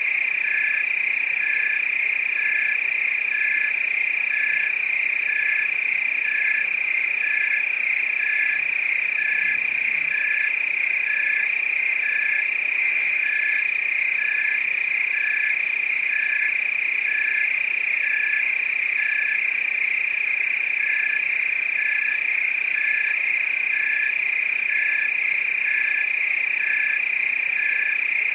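Nighttime chorus of frogs and crickets: a steady high trill throughout, with a short call repeating about one and a half times a second that pauses briefly a little past the middle.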